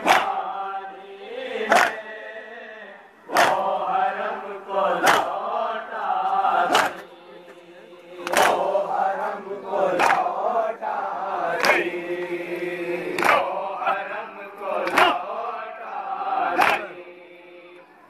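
Men chanting an Urdu noha (a lament) together, with a loud, sharp slap of hands striking bare chests in unison (matam) about every second and a half, in time with the chant.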